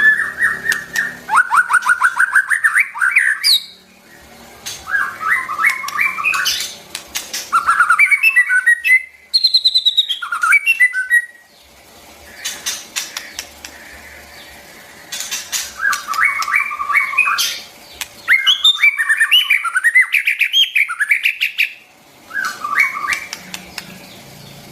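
White-rumped shama singing: runs of fast, varied whistled phrases a few seconds long, broken by short pauses.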